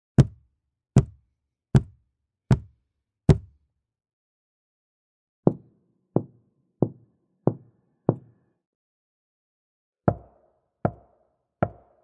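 Knocking on hard objects in three series of evenly spaced single knocks, each series on a different-sounding surface. First come five sharp, solid knocks about three-quarters of a second apart, then after a pause five duller knocks, and near the end three knocks with a short hollow ring after each.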